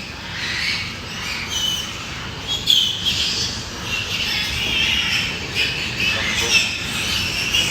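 A continuous chorus of many overlapping high-pitched animal squawks and chirps.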